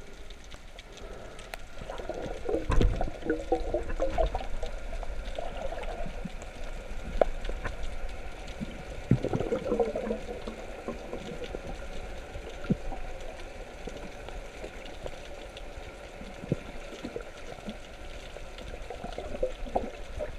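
Water trickling and gurgling along a sailboat's hull, a steady wash with scattered light clicks and knocks.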